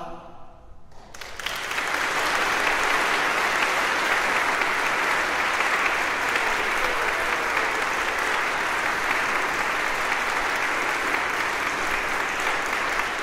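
Audience applause. The last sung chord dies away in the reverb, then clapping starts about a second in, builds quickly and holds steady.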